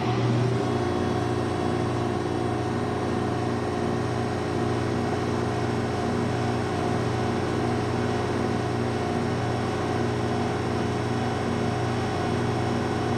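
Jointer (surface planer) running steadily at speed: an even machine hum with several held tones from the electric motor and spinning cutterhead.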